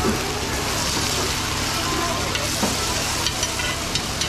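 Food frying in hot oil at a street-food stall, a steady sizzle, with a few short clicks or taps in the second half.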